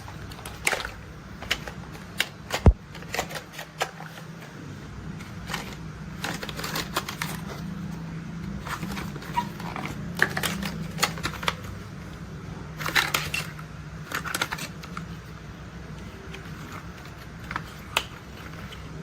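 Plastic toy construction vehicles being handled, giving irregular clicks, taps and light rattles, with one sharp knock a little under three seconds in. A low steady hum runs underneath.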